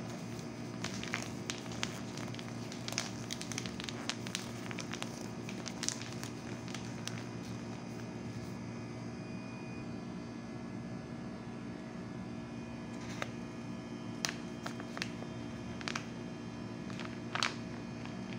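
Steady low hum with scattered sharp clicks and taps, the loudest near the end.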